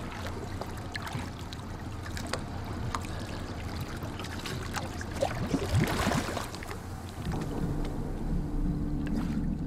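Water sloshing and splashing around a scuba diver at the surface as he goes under. There is a louder bubbling gurgle about six seconds in. A low steady hum joins near the end.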